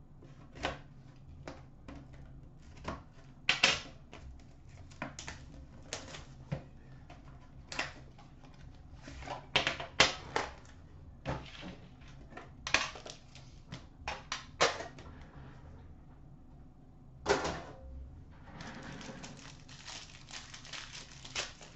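Wrapping being cut and pulled off a metal Upper Deck Premier hockey card tin, with scattered sharp clicks and crackles of plastic and tin as the box is opened. Near the end comes a longer crinkling as the cellophane-wrapped pack from inside is handled and torn open.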